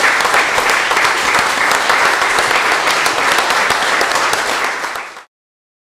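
Audience applauding, dense overlapping hand claps, cutting off abruptly about five seconds in.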